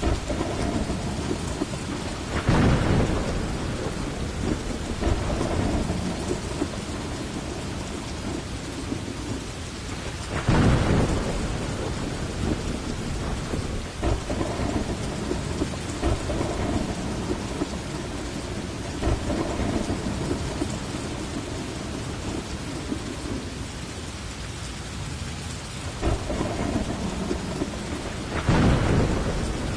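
Heavy, steady rain with rumbles of thunder. Louder thunder swells come about three seconds in, about ten seconds in, and again near the end.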